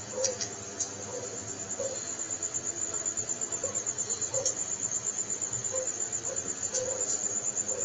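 Crickets chirping: a steady, high-pitched pulsing trill, with a couple of faint clicks near the start.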